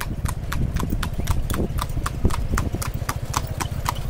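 Marwari horse's hooves clip-clopping on an asphalt road at a trot while it pulls a tanga cart, about four even, crisp strikes a second over a steady low rumble.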